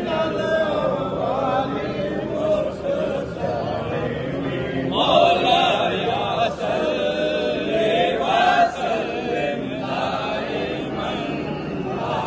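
A crowd of men chanting together in unison, many voices at once, growing louder about five seconds in and again around eight seconds in.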